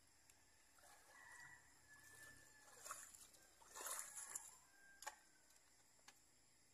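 Faint splashing and sloshing of water: a few soft splashes about three to four and a half seconds in, then a light click or two.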